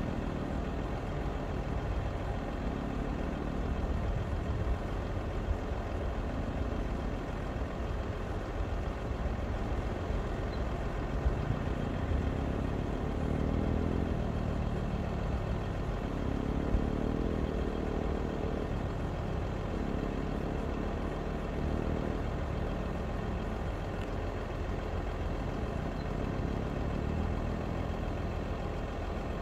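Jeep Gladiator Rubicon's engine working as the truck crawls up a steep rocky hill, its note swelling and easing every few seconds with the throttle over a steady low rumble. There are a few brief knocks along the way.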